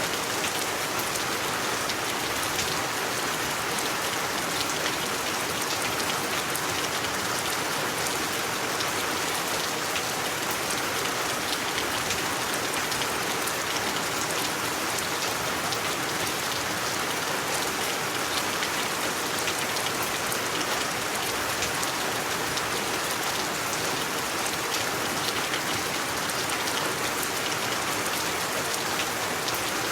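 Steady rain falling on a surface, a dense, even hiss with many small drop patters and no change in strength.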